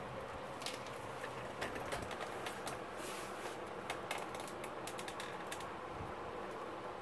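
Stiff plastic stems of an artificial grass bunch clicking and crackling as hands spread and fluff them: a rapid, irregular run of small ticks over a steady hiss. The ticks thin out about five and a half seconds in.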